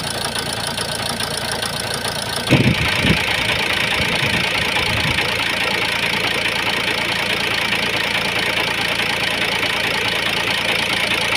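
Ford Focus 1.8 TDCi four-cylinder diesel engine idling with a rough, knocking run, which the owner puts down to a misfiring injector. About two and a half seconds in there are a few heavy thumps, after which the engine sounds louder and brighter and runs on steadily.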